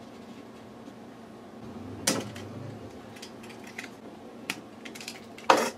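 Plastic parts of an inkjet printhead assembly being handled by hand: light clicks and ticks, with a sharp knock about two seconds in and a louder knock near the end.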